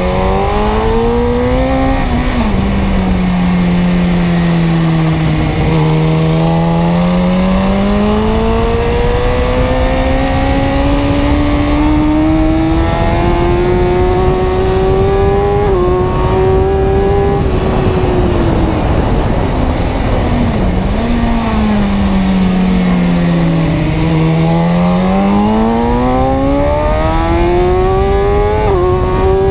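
Motor vehicle running, with a loud pitched drone that rises and falls slowly in pitch over several seconds at a time, over steady road noise.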